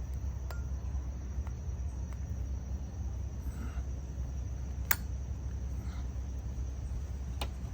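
Steady low hum with a thin, steady high-pitched whine over it, and two sharp clicks, one about five seconds in and one near the end.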